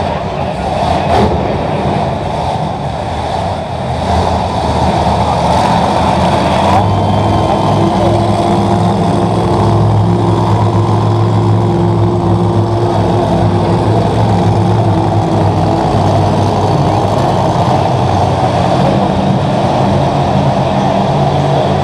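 Monster truck engine running loud as the truck drives the dirt arena floor, its steady drone firming up about a third of the way in.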